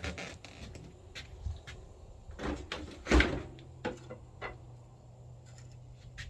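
A few clunks and knocks of a battery being handled and set into a Cub Cadet riding lawnmower, the loudest about three seconds in.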